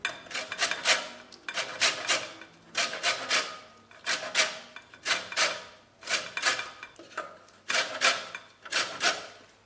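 Lemon peel being grated on a hand grater for zest: repeated rasping strokes, about one short burst a second.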